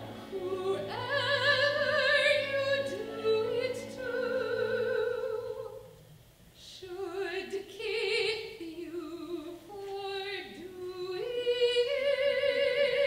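A solo female opera voice singing held notes with wide vibrato, stepping up and down in pitch, with a short break about six seconds in before the line resumes.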